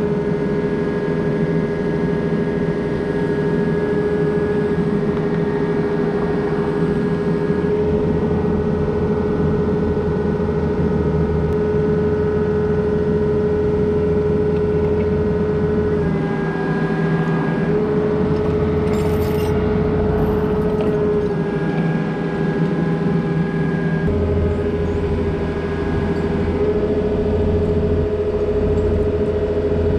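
Takeuchi excavator running, its engine and hydraulics making a steady drone with a whine on top that dips slightly in pitch a few times as the boom works.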